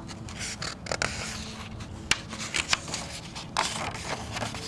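Pages of a spiral-bound picture book being turned by hand: paper rustling with several sharp crinkles and flaps, the sharpest about two seconds in and a longer rustle a little after three and a half seconds.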